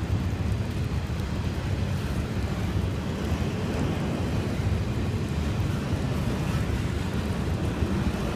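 Double-stack intermodal freight train rolling past, its container well cars making a steady low rumble of wheels on rail.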